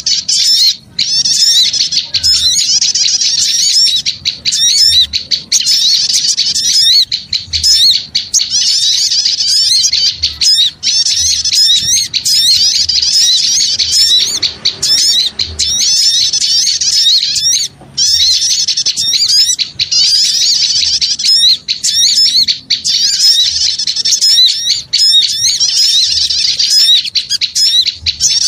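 Many small birds chirping and twittering rapidly and densely, high-pitched and almost without a break: a noisy small-bird lure call (suara pikat) meant to draw small birds in.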